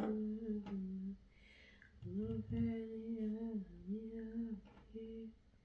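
A person humming a tune in long, held notes: one phrase at the start, a short pause, then a longer phrase and a final short note.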